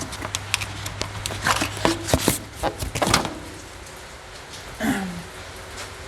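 Hand tools and metal parts clinking and clattering in quick, irregular knocks as the contents of an old toolbox are handled and moved.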